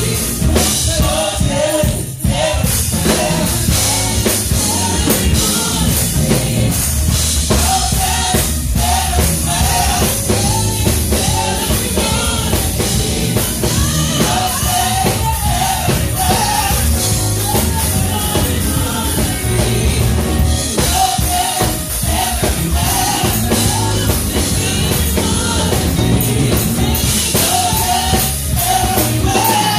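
Live gospel music: a singer carrying the melody in repeated phrases over a band with drum kit.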